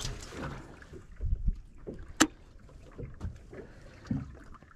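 Small fishing boat rocking on the water, with water slapping the hull and scattered knocks. A sharp click a little past two seconds in is the loudest sound.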